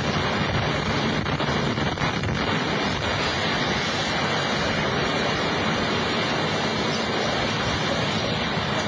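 Steady, loud rushing roar of the South Tower's collapse, debris and dust blasting through the North Tower lobby, with no let-up.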